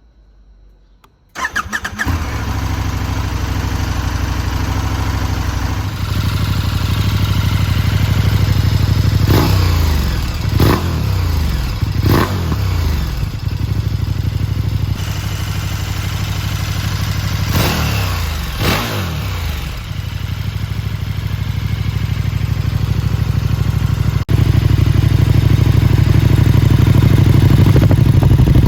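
KTM 1290 Super Duke R's V-twin engine with an Akrapovič silencer starting up about a second in, then idling. Five quick throttle blips rev it up and let it fall back, three together and then two.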